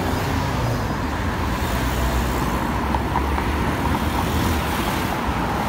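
Steady road traffic: cars and vans driving by on a busy multi-lane city road, engine and tyre noise with no single standout event.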